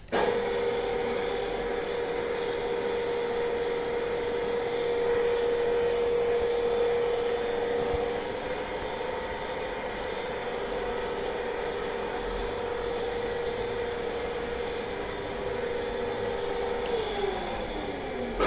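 Milling machine running, its electric motor giving a steady whine that starts abruptly. Near the end one tone slides steadily downward in pitch.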